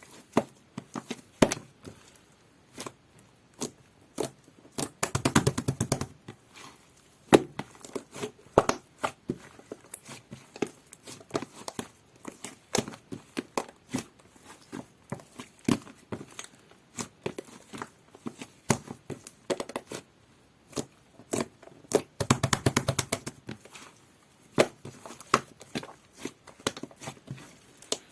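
Jelly-textured slime being squished and poked by hand, giving irregular sticky clicks and pops, with two stretches of rapid crackling, about 5 seconds in and again about 22 seconds in.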